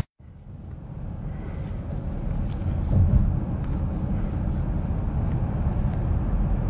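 Low rumbling noise on a phone microphone with a few faint clicks. It starts just after a brief total dropout of the stream's audio, fades back in over about two seconds, and is briefly louder about three seconds in.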